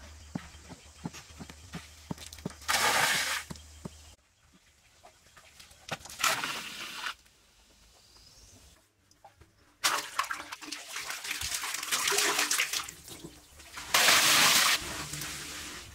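Water pouring and splashing in several separate bursts of about a second each, with a longer stretch of splashing and sloshing about two-thirds of the way in.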